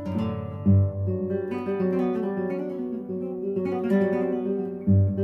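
Acoustic guitar in flamenco style, playing plucked notes and strummed chords, with heavier bass strums about a second in and near the end.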